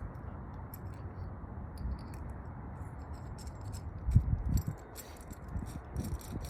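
Small hard parts being handled: scattered sharp clicks and light rattling, with a few louder dull knocks about four seconds in.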